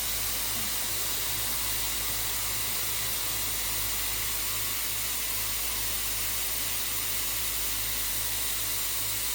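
Dyson Airwrap i.d. multi-styler running with the conical barrel fitted, blowing a steady rush of air with a low hum as it wraps and curls a section of hair.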